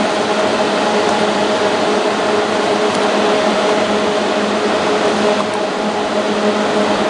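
Three-head flat-bed labeling machine with a suction conveyor running: a steady hum of its suction fan and belt drive, a few even tones over a constant rush of air.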